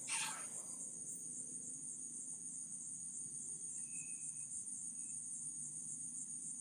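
Steady, high-pitched chorus of crickets at night, with a short sharp noise just after the start.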